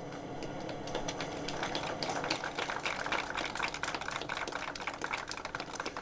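Applause from a small crowd: many hand claps in a dense, irregular stream that runs steadily until the next speaker begins.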